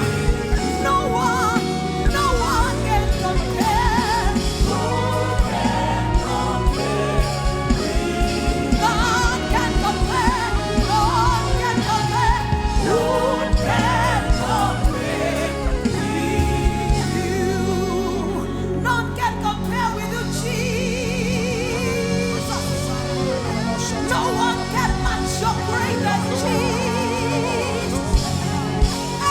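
Gospel music: singing with vibrato over a band with a steady beat. The beat drops out a little past halfway, leaving held chords under the singing.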